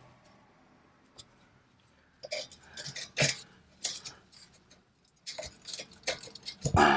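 Hand tools and metal parts clinking and knocking as they are handled, irregular sharp strikes that begin about two seconds in, with the loudest knock near the end.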